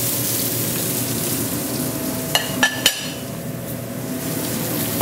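Julienned vegetables sizzling in olive oil in a skillet over medium heat, a steady frying hiss. Three short ringing clinks come a little past the middle, and the hiss is a little softer after them.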